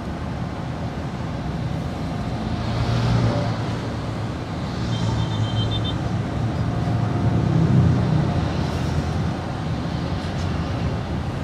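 Road and engine noise inside a moving car's cabin in city traffic: a steady low rumble that swells a little around three and eight seconds in. A brief high beeping comes in about five seconds in.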